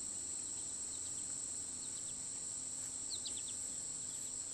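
Marsh insects trilling in one steady, unbroken high-pitched note, with a bird giving a quick run of four or five high chirps about three seconds in.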